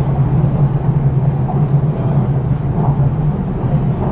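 Cabin running noise of an MTR East Rail Line R-train electric multiple unit in motion: a steady low drone of wheels on rail and traction equipment, heard from inside the carriage.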